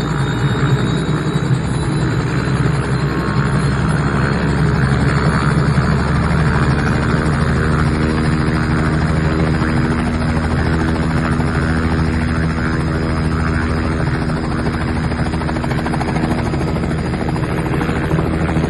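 Robinson R44 helicopter running steadily: the even drone of its six-cylinder Lycoming piston engine together with the beat of the rotor.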